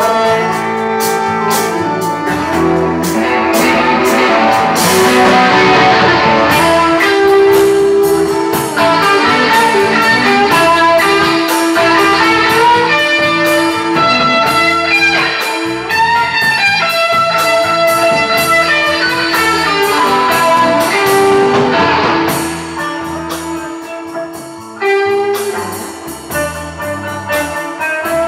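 Rock band playing an instrumental break: electric guitar lead over bass and drums, with no singing. The music drops quieter for a few seconds near the end, then comes back up.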